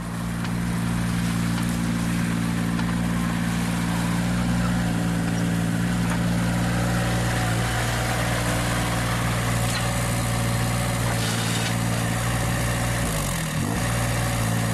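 Engine sound of a diesel excavator idling steadily, the sound given to a toy mini-excavator, with a brief drop and return in pitch about 13 seconds in.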